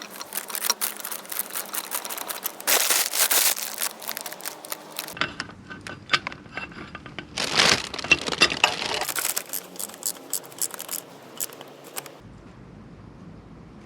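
Hands-on workshop handling noise on the motorcycle: a run of small clicks, taps and clatter with two louder stretches of rustling and crinkling.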